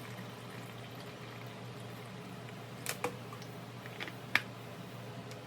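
A few light clicks of plastic humidifier parts being handled, about three and four seconds in, over a steady low hum.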